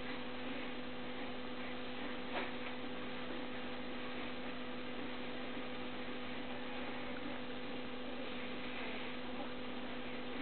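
A steady two-tone electrical hum over a background hiss, with one faint click about two and a half seconds in.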